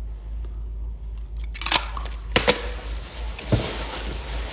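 Rustling packaging being handled, with a few sharp clicks and knocks, two of them close together about halfway through.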